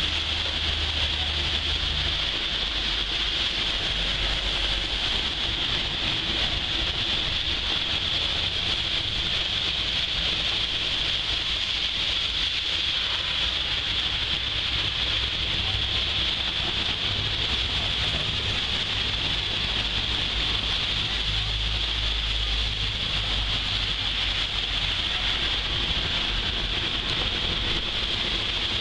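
Heavy rain pouring onto a paved street and road, a steady, even hiss, with a low rumble coming and going underneath.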